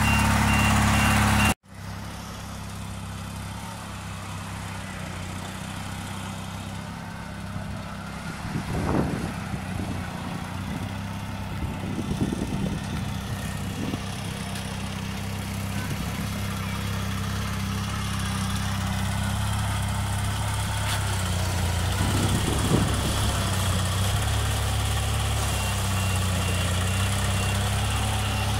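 Reversing beeps over an engine for about the first second and a half, then a sudden cut to an engine running steadily at low speed, with a few brief louder surges about nine and twelve seconds in and again near the end.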